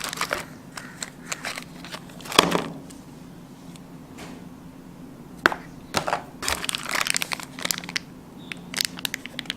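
Plastic action-camera mounts and their packaging being handled: irregular rustling with sharp plastic clicks, the loudest about two and a half seconds in and a cluster a little past the middle.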